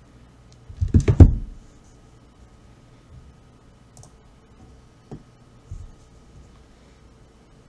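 Computer keyboard and mouse clicks: a quick cluster of loud clacks and knocks about a second in, then a few faint single clicks.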